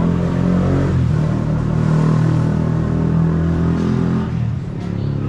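A motor vehicle's engine running steadily, easing slightly about four and a half seconds in.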